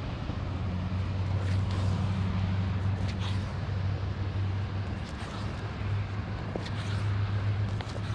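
A steady low engine hum under an even rushing noise, with a few faint clicks here and there.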